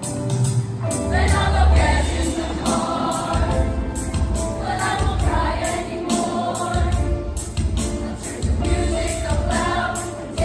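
A group of voices singing together over musical accompaniment with a steady beat.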